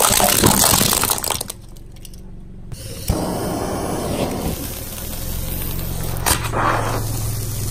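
A car tyre crushing shiny Christmas bell ornaments, with crackling and breaking for about the first second and a half. About three seconds in there is a click, then a lit sparkler fizzing steadily as the tyre rolls onto it, with a few sharp cracks near the end.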